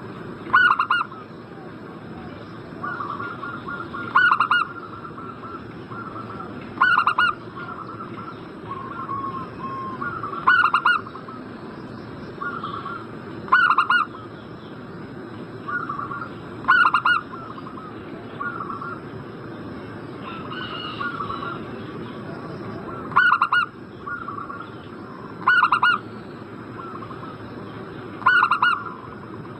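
Zebra dove (perkutut) cooing: nine loud calls, each a short run of quick notes, coming about every three seconds with one longer pause in the middle, and quieter cooing in between.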